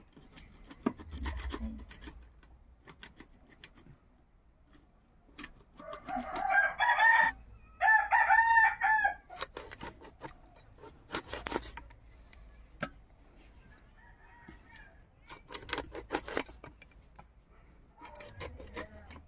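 A rooster crowing about six seconds in, one crow in two parts, the loudest sound. Around it, short scrapes and knocks of a large blade working on a snake fish.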